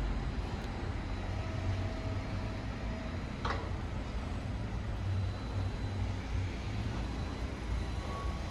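Street traffic: a steady low rumble of vehicles on the road, with one brief sharp sound about three and a half seconds in. Near the end a vehicle's reversing beeper starts sounding.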